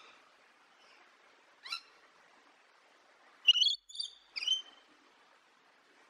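Rainbow lorikeet calling: one short call, then three loud, high-pitched screeches in quick succession a couple of seconds later.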